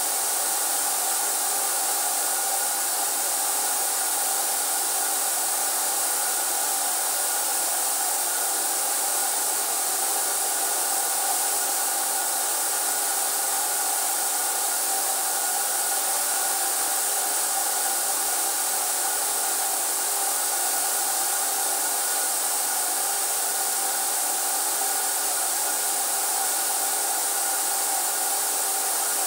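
Electric blower running steadily: a rush of air with a constant whine, not changing in level.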